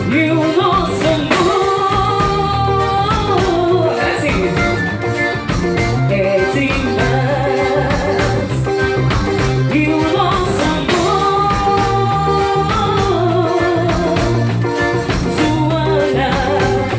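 Live forró band playing through a PA: piano accordion carrying the melody over a drum kit and electric guitar, with a woman singing into a microphone.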